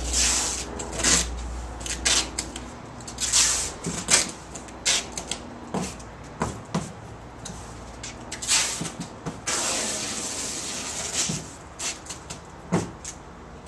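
Packing tape pulled off the roll in a series of short rips and one longer pull, and stretched over the seams of a large corrugated cardboard box. A few knocks on the cardboard come in between.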